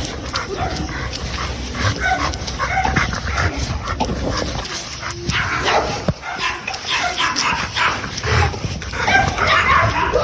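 Dogs barking and yipping, many short barks in an irregular run.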